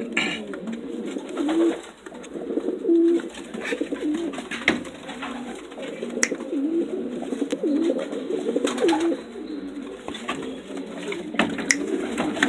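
Homing pigeons cooing: a continual run of short, low, overlapping coos, with two sharp clicks about six and eleven and a half seconds in.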